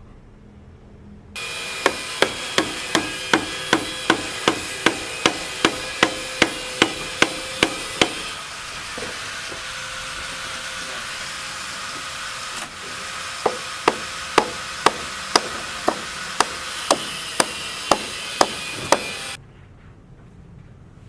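Hammer blows at a steady rhythm, about two to three a second, in two runs with a pause of several seconds between them, over a steady background noise.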